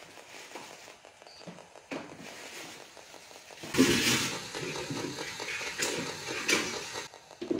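Faint room noise with a click about two seconds in, then, from just under four seconds in, a louder hissy passage of about three seconds with a faint steady tone, starting and stopping sharply. It is presented as a psychophony, a claimed spirit voice captioned "eres tú Ricardo tonto".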